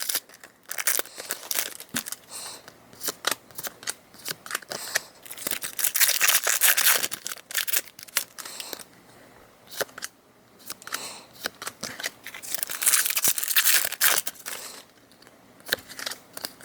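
Foil Pokémon TCG booster packs being opened and handled: crisp wrapper crinkling, tearing and snipping, with clicky card handling, in bursts separated by short lulls.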